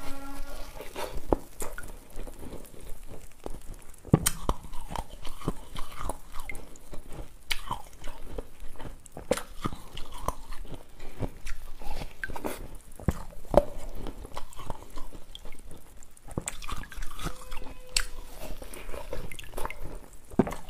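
A block of cola-soaked ice being bitten and chewed, with many sharp, irregular crunches and quieter chewing between them.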